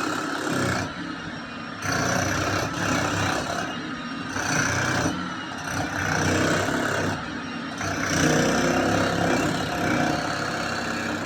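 Hammer drill running in repeated bursts of one to two seconds, stopping and starting with short pauses between.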